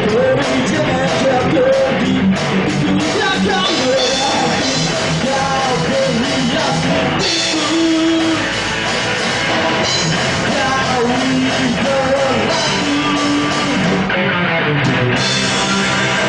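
Live rock band playing a melodic punk song, with a singer over the band.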